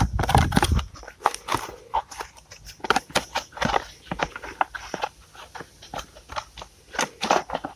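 Disc-brake pads and caliper parts being handled: irregular clicks and knocks, with a low thump in the first second.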